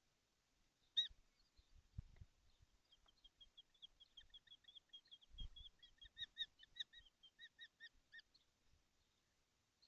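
Kestrel calling: one sharp high call about a second in, then a quick run of short, high repeated calls, about four a second, for some five seconds. Two dull low thumps, about 2 and 5.5 seconds in.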